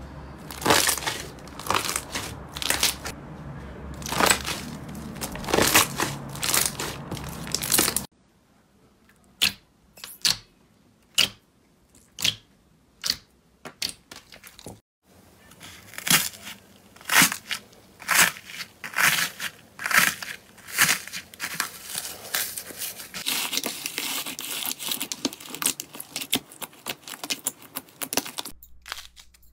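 Hands squeezing and pressing slime, with many sharp pops and crackles as trapped air bubbles burst. The pops come thickly at first, thin out to single snaps for several seconds near the middle, then come thickly again.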